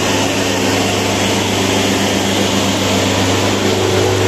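Mahindra Arjun Ultra-1 555 DI tractor's four-cylinder diesel engine running at full throttle with a steady, unchanging note, pulling hard under load in a tractor tug-of-war.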